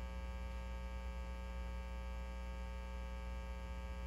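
Steady electrical mains hum with a buzzy series of overtones, unchanging throughout.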